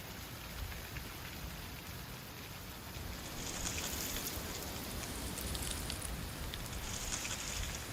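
Strong gusty wind, rumbling on the microphone, with a louder rushing gust swelling about three seconds in and another near the end.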